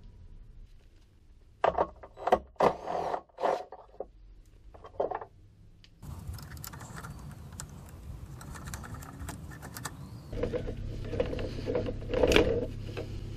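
Hand tools working loose the radiator mount bolts: a run of sharp metallic clicks and clanks, then after a break a steady hum under more clicking and rattling, with one louder clack near the end.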